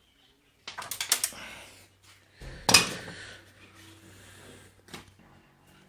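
Small metal clicks and clatter as the nuts holding an LED TV's panel are undone and handled, with a cluster of quick clicks about a second in and a louder knock a little under three seconds in.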